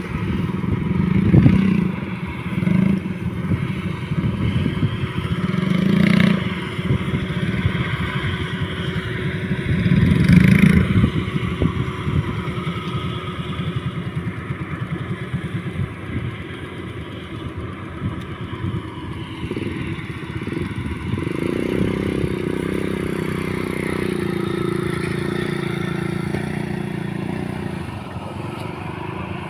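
Motorcycle engine running under load, swelling in short bursts of throttle, with scraping and rattling, then settling into a steadier drone about two-thirds of the way through.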